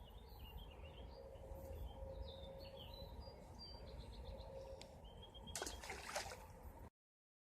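Faint outdoor ambience with a songbird chirping short, varied notes for the first few seconds, ending in a quick run of repeated notes. Two brief noisy sounds come near the end, then the sound cuts out completely.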